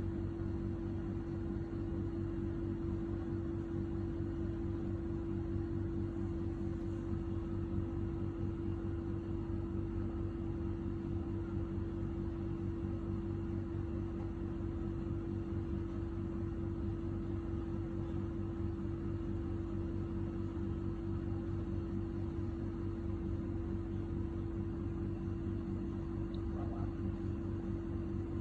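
Steady machine hum with a constant mid-low tone over a faint even hiss.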